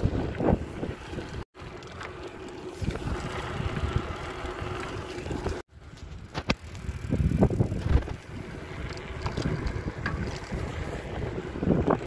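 Wind buffeting the microphone of a phone carried on a moving bicycle, gusting up and down, with scattered small clicks. The sound cuts out completely for a moment twice, about a second and a half in and again near the middle.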